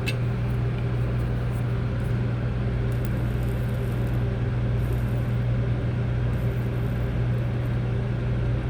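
A steady low electrical hum with a faint hiss over it, and a few faint light ticks.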